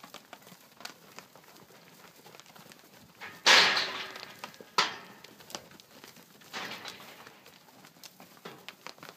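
Cattle moving about in a steel-panel yard: hooves shuffling and knocking on hay and dirt. A loud ringing bang about three and a half seconds in, then a sharp knock just over a second later and a smaller one near the seven-second mark.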